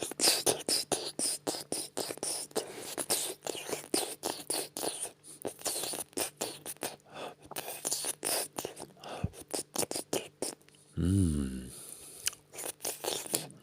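Wet mouth sounds imitating oral sex: rapid, irregular licking and smacking noises for about ten seconds, then a short hummed "mm" that bends in pitch about eleven seconds in, and another just at the end.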